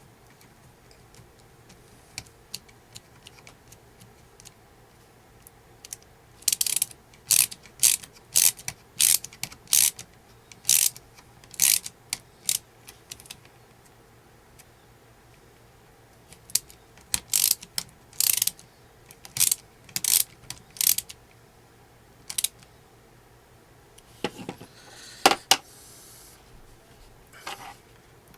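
Runs of short, sharp ratcheting clicks as a screw is driven in on the front link of an ECX Torment RC truck's steering hub: about two clicks a second, in two spells, with a few more clicks near the end.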